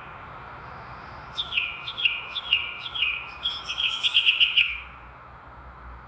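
A bird chirping: a run of short, falling chirps about two a second, quickening into faster notes before stopping about three-quarters of the way through, over a faint steady hiss.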